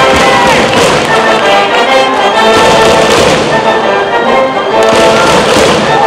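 High-school brass band in the stands playing a cheering tune, with loud percussion hits and the cheering section's voices mixed in.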